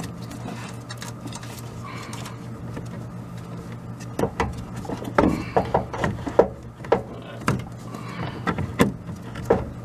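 Irregular metallic clicks and knocks of pliers working the spring clamp back along a lower radiator hose, starting about four seconds in, over a steady low hum.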